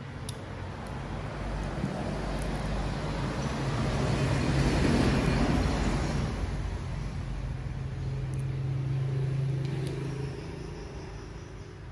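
A motor vehicle passing on the road: engine and road noise swell to a peak about five seconds in and die away, with a steady low engine hum that cuts out about ten seconds in.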